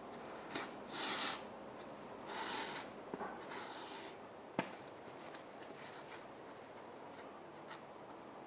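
Yarn being pulled through a punched hole in a cardboard journal cover and drawn tight, giving two short rasping rubs about one and two and a half seconds in, then a few light clicks and taps.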